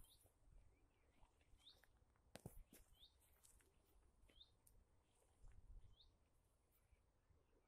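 Faint bird call: a single short, curved note repeated five times, about every second and a half, over near silence, with a faint click about two and a half seconds in.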